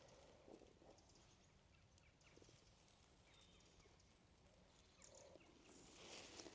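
Near silence: faint woodland ambience with a few soft scattered clicks.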